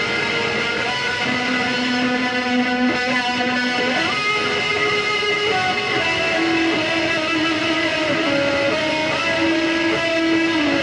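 Electric guitar playing a melody of long held notes, with slides between some of them, as an instrumental performance.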